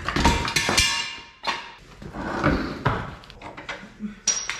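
Metal clanking and knocking of tools and truck parts being handled. A loud clank at the start rings on for about a second, more knocks follow around the middle, and a brief high whine comes near the end.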